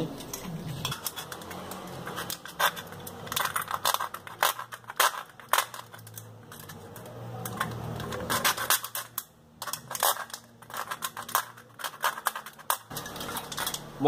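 Thin aluminium drink can being cut into slits by hand, its metal crinkling and snapping in a run of irregular sharp clicks and crackles.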